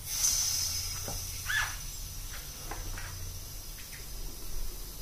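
Air hissing into a vacuum chamber as the vacuum is released. It starts sharply, then eases off into a steady thin hiss, with a few faint short squeaks along the way.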